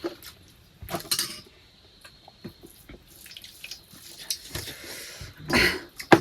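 Dishes and cutlery clinking and knocking at a meal: scattered light clicks, with a louder clatter about a second in and again near the end.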